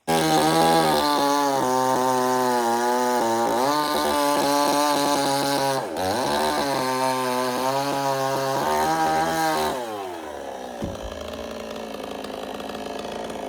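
Two-stroke chainsaw running at high revs, its pitch dipping briefly a few times. Near the end the revs fall away and it carries on running more quietly.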